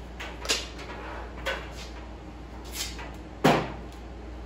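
Handling noise from a loose car wiring harness: a few short rustles and clicks about a second apart, and one louder knock about three and a half seconds in.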